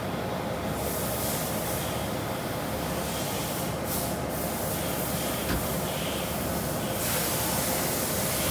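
Vertical injection molding machine running: a steady hum with a hiss over it, and the hiss grows louder about seven seconds in.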